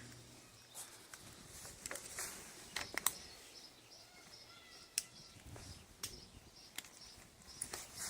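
Quiet scattered clicks and taps of small metal parts being handled, with faint bird chirps in the background.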